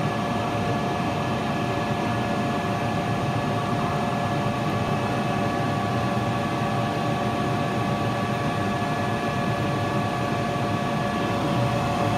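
A laser cutting machine's running equipment humming steadily, with a few steady whining tones over a low rumble.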